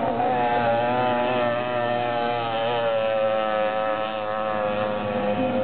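Small two-stroke moped engine buzzing at high revs, its pitch dipping and rising a little.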